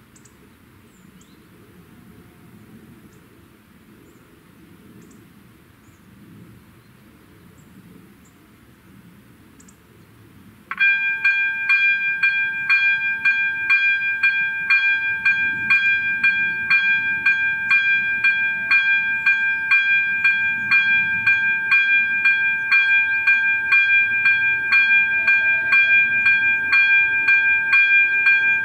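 Faint outdoor background, then about 11 s in an AŽD ZV-02 electronic level-crossing bell starts ringing. It gives a loud, regular pulsing ring made of several steady high tones, the warning that the crossing has been activated for an approaching train.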